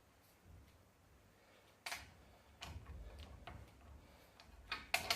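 Sharp metallic clicks and knocks from a wrench being worked on a differential's pinion nut as it is tightened to crush the crush washer: one loud click about two seconds in, a few more, and a louder cluster near the end.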